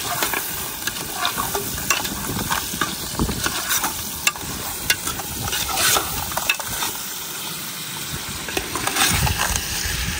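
Chunks of meat and onion frying in a metal pot with a steady sizzle, stirred with a metal spoon that scrapes and clinks irregularly against the pot.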